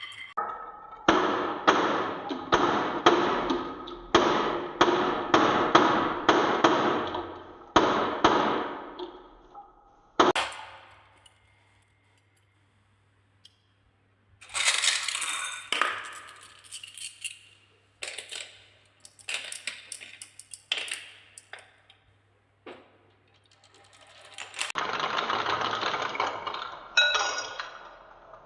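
Marbles rolling and clattering down wooden marble-run track: a dense rattle of clicks for the first several seconds, ending in a sharp knock. After a short pause come bright, ringing clinks of marbles striking each other and the track, then a steady rolling rush near the end.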